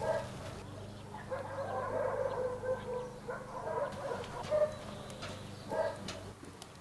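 Chickens calling: a short call, then a drawn-out wavering call lasting about two seconds, then a couple more short calls.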